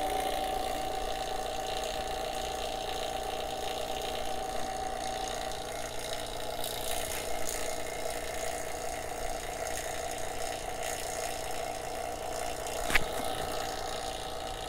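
Small electric A/C vacuum pump running steadily with an even hum, pulling a vacuum on the refrigerant recovery hoses and tank. A single sharp click comes near the end.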